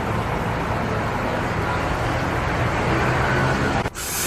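Steady vehicle and traffic noise with a low engine hum. It cuts off abruptly near the end and gives way to a hiss.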